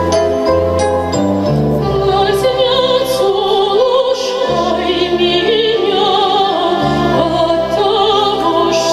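Operatic-style music: sustained accompaniment with changing bass notes, and a singing voice with wide vibrato that comes in about two seconds in.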